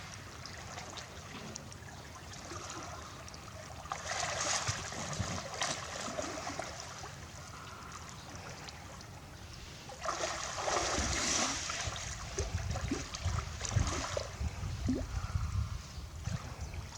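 Water splashing and sloshing as a hippopotamus moves in its pool, in two louder surges about four and ten seconds in.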